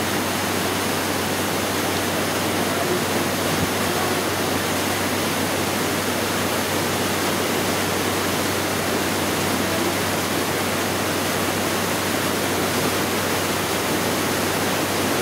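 Steady rushing of a large waterfall, Maria Cristina Falls, with its white-water river below.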